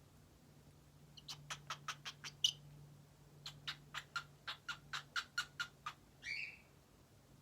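Cockatiel making kiss sounds: two quick runs of short smacking clicks, about five a second, then one short whistled chirp near the end.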